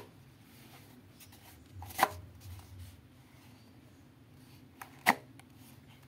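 Two sharp knocks about three seconds apart, from a handmade EVA foam and cardboard prop gun being handled and knocked.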